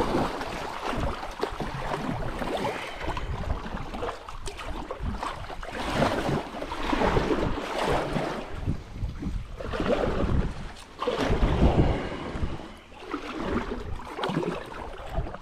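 Paddling a kayak on a river: water swishing and splashing with the strokes, rising and falling every second or two, with wind rumbling on the microphone.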